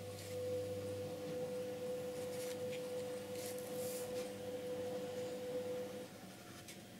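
A steady pure tone starts just after the beginning and stops about six seconds in. Under it, a few faint strokes of a small round paintbrush laying tempera on a wooden box.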